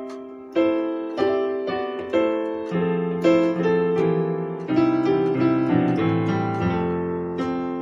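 Keyboard playing a slow breakdown of triad chords in drop 2 voicings, a new chord every half second to a second, with lower bass notes joining about three seconds in.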